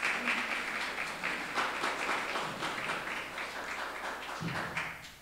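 Audience applauding, many people clapping at once, dying away near the end.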